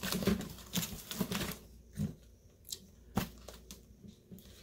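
Packaging rustling and crinkling as a box is opened and handled, busiest in the first second and a half, then a few separate sharp clicks and knocks.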